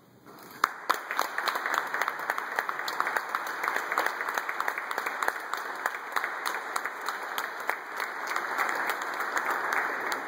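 Audience applauding: it starts suddenly after a silence, with a few loud, sharp claps from close by about half a second to a second in, then steady, dense clapping.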